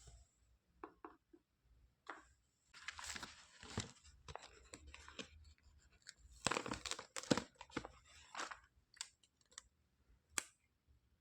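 Packaging tearing and crinkling in two rustling bursts, with scattered small clicks of plastic toy pieces being handled.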